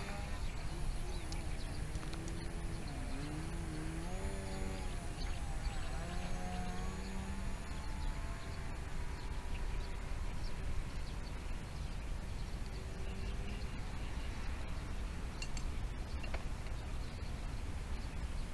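Electric motor and propeller of a small EPP foam radio-controlled aerobatic plane, whining in flight with its pitch sliding up and down as the throttle changes and the plane passes. The whine fades about halfway through as the plane flies far off, over a steady low rumble.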